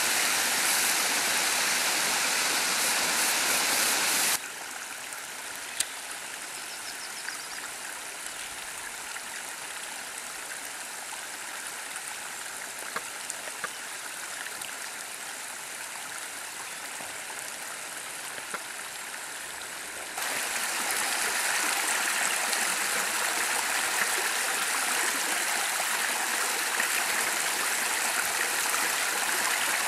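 Running water of a stream: a steady rush that cuts suddenly about four seconds in to a quieter, gurgling flow with small splashes and drips, then jumps back up to a louder rush about twenty seconds in.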